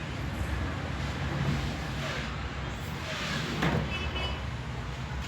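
Steady low background rumble, with a louder swell that rises and falls about three and a half seconds in.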